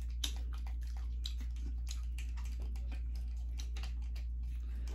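Eating sounds: light, irregular clicks and taps of forks on takeout bowls and plastic containers, with chewing, over a steady low hum.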